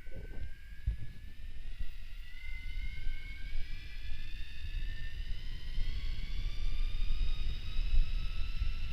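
Electric bike motor whining, its pitch rising steadily as the bike speeds up, over a rough low rumble of wind and rolling noise on the microphone.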